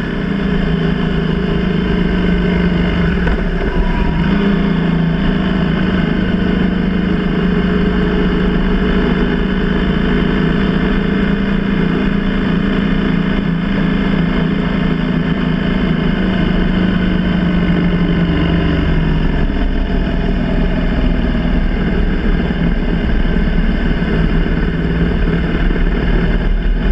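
BMW R1200GS boxer-twin engine running at a steady cruise, heard from on board the moving motorcycle; its tone drops about two-thirds of the way through.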